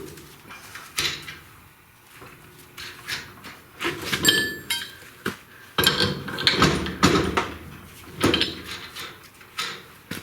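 Hand tools and small metal parts being handled and set down in a workshop: a run of irregular clinks and knocks, with a short metallic ring about four seconds in and a busier patch of clattering a little past halfway.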